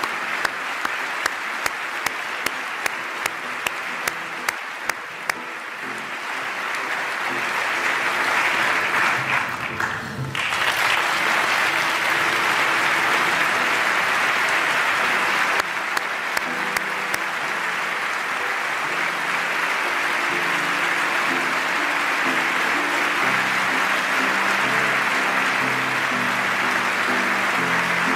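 A large audience applauding steadily in a big hall, with soft instrumental music of slow sustained notes underneath. A few sharp claps, about two a second, stand out in the first five seconds, and the applause briefly dips about ten seconds in.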